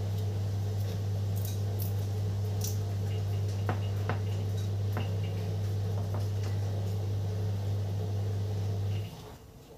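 A steady low hum that cuts off abruptly near the end, with a few faint clicks and soft rustles over it from hands folding pandan leaves around chicken pieces and touching a glass baking dish.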